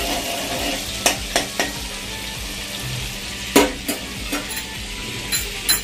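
Oil and butter sizzling in a steel kadai, with a steel spoon clinking sharply against the pan several times as it stirs.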